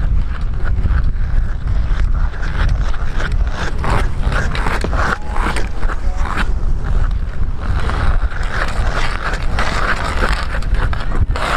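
Hockey skate blades scraping and cutting the ice in a run of quick, hard strides during a speed sprint, over a heavy low rumble.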